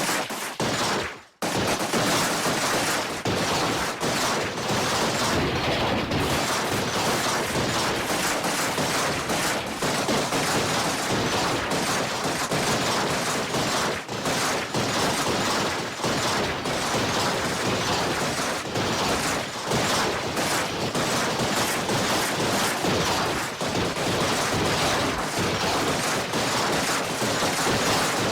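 Dense, continuous crackling and rattling made of many sharp clicks over a steady noise. It breaks off briefly about a second in, then runs on.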